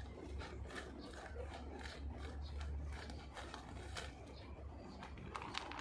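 Faint, irregular scratching and rustling of a hand working the soil of a potted strawberry plant, with a plastic bag of fertilizer crinkling. A low steady hum runs underneath.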